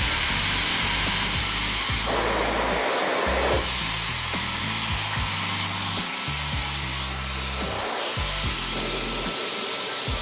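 Slope Hill handheld blow dryer with a styling concentrator nozzle blowing steadily on hair, over background music with a bass line.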